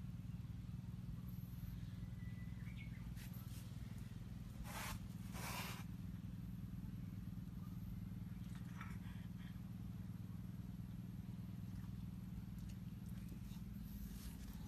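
A steady low hum, with two short rustling noises about five seconds in.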